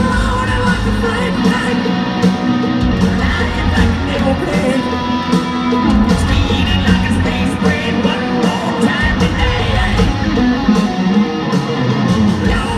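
Hard rock band playing live and loud in an arena: distorted electric guitars, bass and drums, with a sung and shouted vocal over them.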